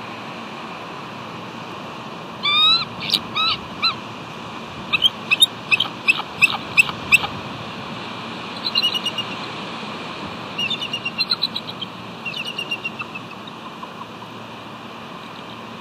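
Bald eagles calling: a few high, piping notes about two and a half seconds in, a run of sharp notes after, then three quick chittering runs. A steady hiss lies underneath.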